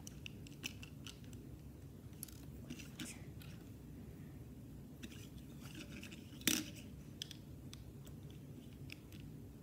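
Small plastic Lego bricks clicking and tapping as they are handled and pressed together, in scattered light clicks with one sharper click about six and a half seconds in.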